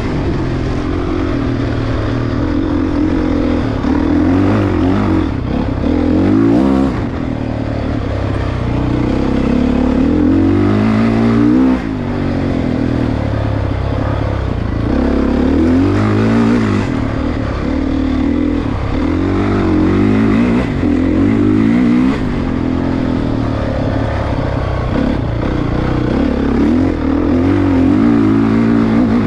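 Four-stroke dirt bike engine on a trail ride, revving up and easing off over and over, its pitch climbing and falling every few seconds as the throttle opens and closes. The engine note briefly cuts back about twelve seconds in.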